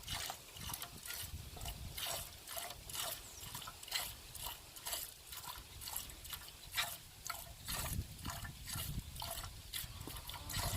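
Cow being milked by hand: short squirts of milk hitting a pail, about three a second in a steady rhythm.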